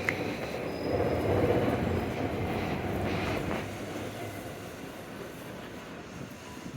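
A large vehicle passing with a low rumble, loudest about one to two seconds in, then fading away.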